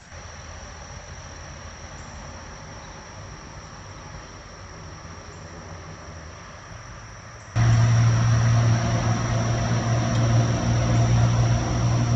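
Steady high insect chirring over a background hiss. About seven and a half seconds in, the sound cuts abruptly to a much louder steady low drone.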